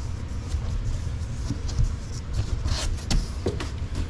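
A cardboard box being opened by hand, with a few scattered rustles and crackles about two-thirds of the way in, over a steady low rumble.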